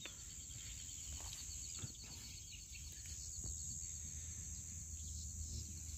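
Faint outdoor ambience: a steady high insect hum over a soft background hiss, with a couple of faint clicks.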